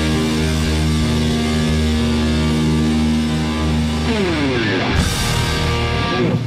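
Live rock band of electric guitars, bass and drums holding a sustained final chord. About four seconds in, the pitch slides downward, and a cymbal crash about a second later ends the song.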